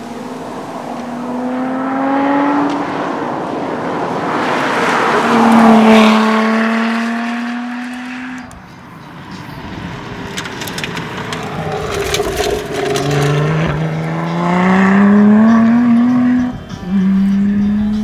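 Lotus Exige 350 Sport's supercharged 3.5-litre V6 at full throttle as the car passes by, the engine note rising through the revs and loudest about six seconds in. After a sudden break, the car comes past again with the revs climbing, and a brief drop in sound near the end marks a gearchange.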